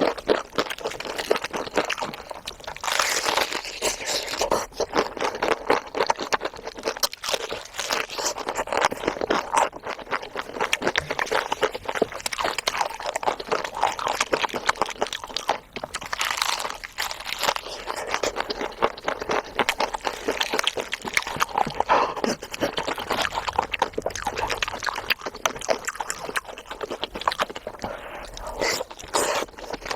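Close-miked eating: chewing and crunching of food, a dense run of small, rapid clicks.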